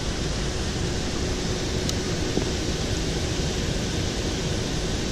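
Steady rushing background noise outdoors, even in level, with a faint steady hum joining about a second in.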